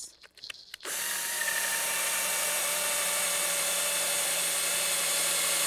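Cordless drill with a twist bit boring a pilot hole for a hanger bolt into a maple leg. The motor starts about a second in and runs at a steady speed.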